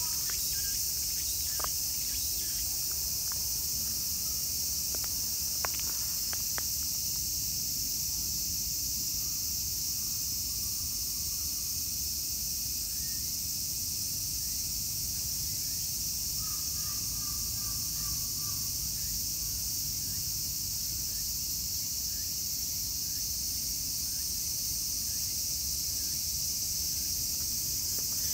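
A dense chorus of summer insects shrilling steadily high-pitched and unbroken.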